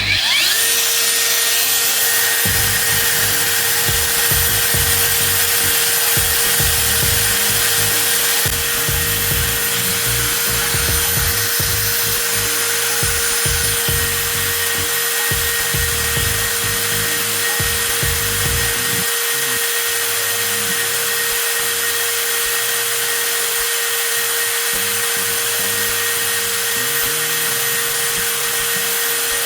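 Cordless 20V angle grinder switched on and running steadily at full speed, a constant high motor whine.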